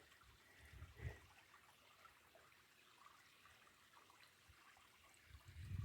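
Near silence with the faint trickle of a stream, and a soft low thump about a second in.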